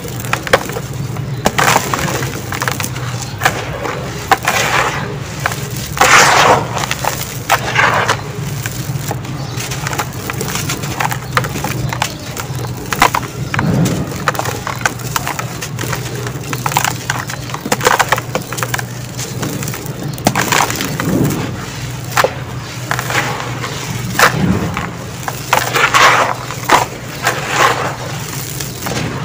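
Dry sand-cement lump being squeezed and crumbled by hand, giving gritty, irregular crunches with loose grains falling into the tub. A steady low hum runs underneath.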